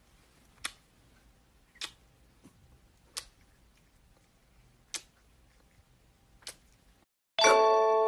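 Five sharp clicks or taps at uneven intervals over faint room tone. Near the end, chiming music cuts in loudly.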